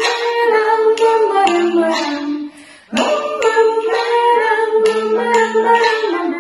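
Women's voices singing a children's song together, with a stick tapping a small tube in a steady beat about twice a second. The singing and tapping break off briefly about two and a half seconds in.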